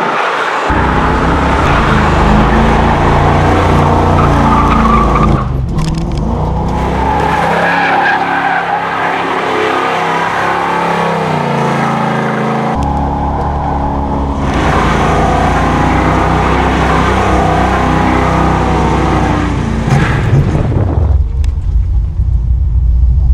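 Muscle-car V8s held at high revs through burnouts and donuts, with tyres squealing on asphalt. The engine note rises and falls with the throttle, and the sound changes abruptly twice.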